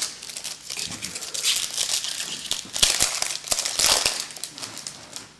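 Trading card pack wrapper crinkling in irregular bursts as a pack is torn open and the cards are handled.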